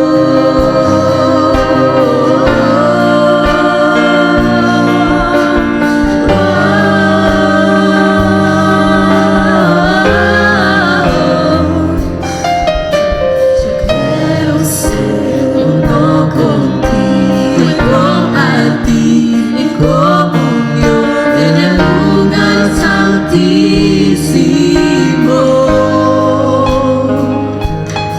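Christian worship music: sustained chords from the band, with a singer's melodic vocal lines over them.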